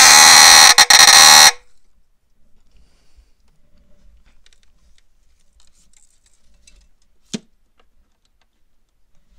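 Fire alarm set off by a pulled tripwire, shrieking very loudly with a brief stutter, then cutting off abruptly about a second and a half in. Faint handling noise follows, with a single sharp click about two seconds before the end.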